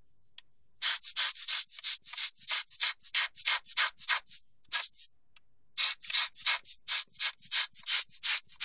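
Rubber hand blower squeezed over and over, each squeeze a short hissing puff of air, about four or five a second, blowing dust off a DSLR's image sensor. The puffs start about a second in, stop for about a second just past the middle, then start again.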